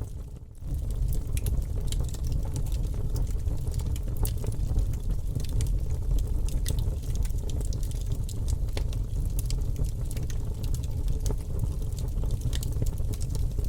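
Wood campfire burning, with many sharp crackles and pops from the burning wood over a steady low rumble. The sound dips briefly about half a second in.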